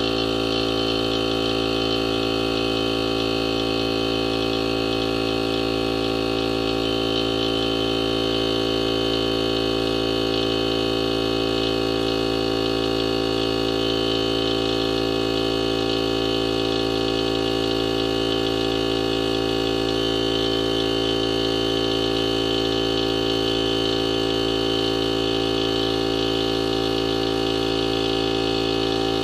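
Craftsman V20 cordless brushless pancake air compressor running steadily, a constant machine hum with no change in pitch, as its battery-driven pump fills the 2.5-gallon tank toward the 125 PSI cut-off.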